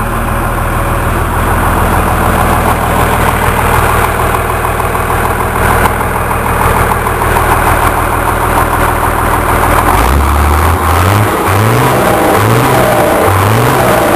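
Volkswagen 14.210 truck's diesel engine running, its turbocharger fitted with a comb on the intake meant to make it whistle. About ten seconds in, a low sound with a short rising pitch starts repeating, a little under once a second.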